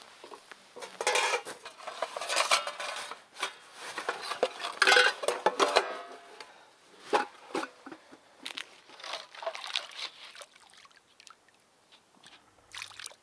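A metal eating utensil clinking and scraping against camp cookware in irregular strokes. The strokes are busiest in the first half and thin out to scattered clicks later on.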